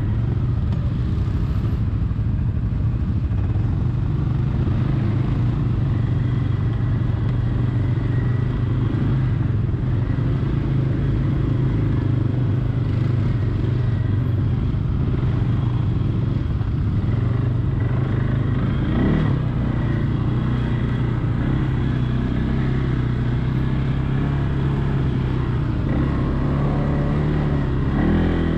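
Quad (ATV) engine running steadily while riding, its pitch climbing briefly about two-thirds of the way through and again near the end.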